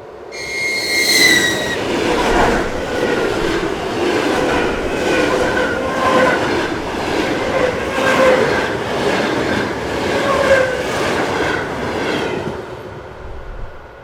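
ED4 electric multiple unit passing, its wheels clattering over the rail joints. It opens with a brief high tone falling slightly in pitch, and the sound dies away about twelve and a half seconds in.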